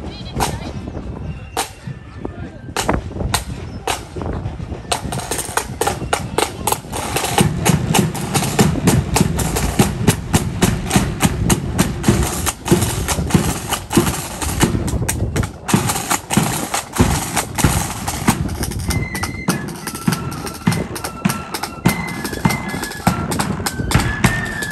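A marching flute band's snare drums and bass drum. A few single strikes keep time at first; about five seconds in the snare drums break into rapid full drumming over the bass drum. Flutes come in with a tune near the end.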